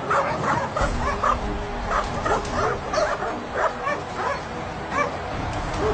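A dog whining and yipping in short, high cries, about two or three a second.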